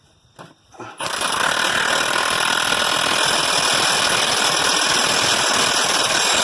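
Impact wrench hammering on a lug nut for about five seconds, a loud steady rattle that starts about a second in and cuts off suddenly, tightening the bottom nut on a freshly mounted wheel.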